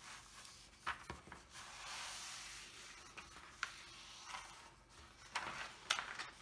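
Faint paper handling: the protective cover sheet of a diamond painting canvas being lifted, slid and smoothed by hand. There is a soft sliding rustle about two seconds in and a few sharp crackles of the sheet.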